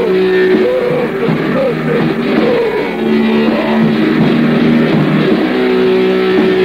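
Heavy metal music from a 1984 recording, played back at an adjusted tempo: distorted electric guitar and a drum kit, with held and bending notes.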